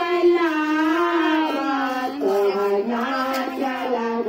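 Women's voices singing a song together, holding long notes and sliding between them.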